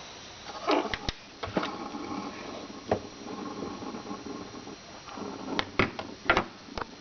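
Handling noises: an irregular series of sharp clicks and knocks with scraping and rattling between them, the loudest knocks about three seconds in and near the end.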